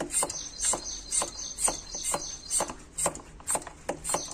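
Hand pump of a bottle-top pressure sprayer worked in and out, pumping air into a plastic soda bottle: a regular rhythm of pump strokes, about two a second.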